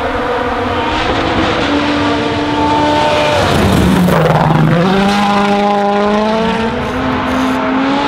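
Ford Fiesta WRC rally car's turbocharged 1.6-litre four-cylinder engine at full throttle on gravel, climbing through the gears in steps as it approaches. About three and a half seconds in the pitch drops sharply as it passes close by with a rush of gravel, then it accelerates through the gears again.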